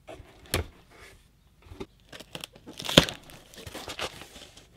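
A small cardboard box being handled and opened on a wooden workbench: cardboard rustling and scraping, with a sharp click about half a second in and a loud knock about three seconds in.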